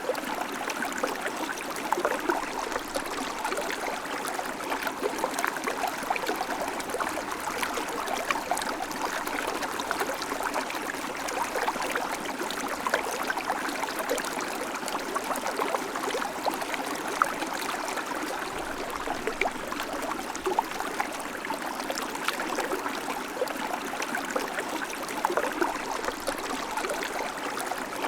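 River water flowing steadily over stones, a continuous babbling rush with small splashes and gurgles throughout.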